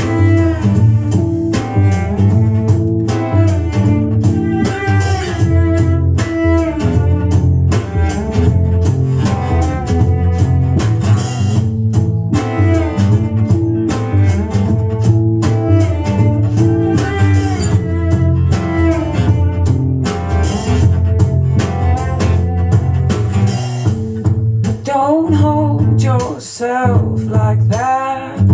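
Recorded music played loud through a pair of floor-standing hi-fi loudspeakers in a room: a plucked acoustic guitar pattern over a deep string bass line. Some sliding higher notes come in near the end.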